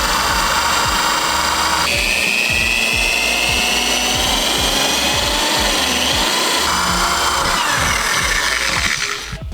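Power drill running, its bit boring a hole into the car's body for a harness ground screw, with a high whine through the middle stretch; background music plays along with it. The sound drops away near the end.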